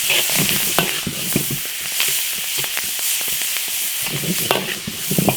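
Vegetables and aromatics sizzling in hot oil in an iron wok while being stir-fried, with a steady hiss and scattered scrapes and clicks of the spatula against the wok.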